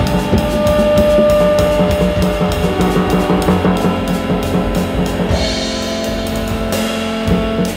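Live band of horns and rhythm section playing: drum kit with cymbals and double bass under held alto saxophone and trumpet lines. The cymbal strokes break off briefly a little past halfway.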